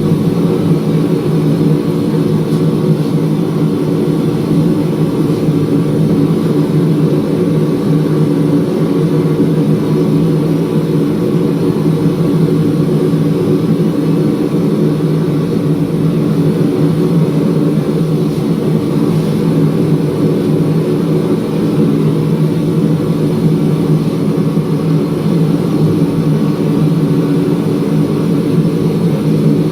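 A machine running steadily: a loud, even drone with no change in pitch.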